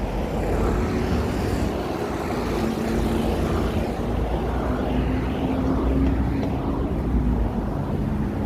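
City street traffic: a steady low rumble of vehicle engines and tyres, with a faint engine hum that drifts slightly higher in pitch midway.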